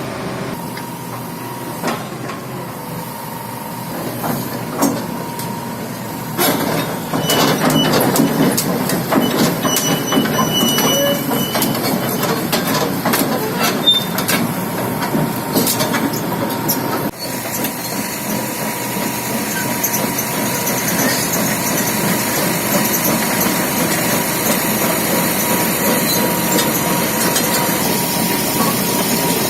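Hitachi 330H hydraulic excavator working: a steady machine noise from its engine and hydraulics, with scattered knocks and clanks. The sound gets louder about six seconds in and stays there.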